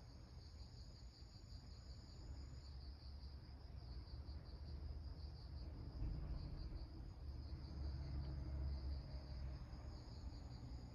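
Insects chirring steadily in a fast, even pulsing trill, over a low rumble.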